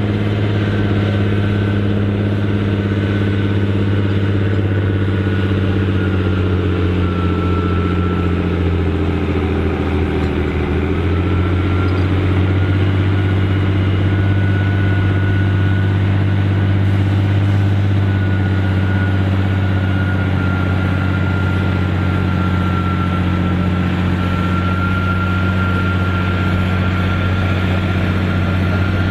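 Massey Ferguson 6499 tractor's diesel engine working hard under load as it pulls a weight sledge, its pitch sagging briefly about ten seconds in and then holding steady. A high whine runs above the engine note.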